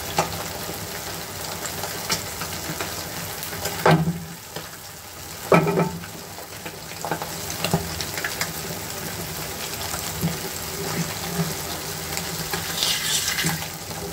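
Eggs frying in oil in a nonstick pan: a steady sizzle with scattered crackles, two louder pops about four and five and a half seconds in, and a burst of crackling near the end.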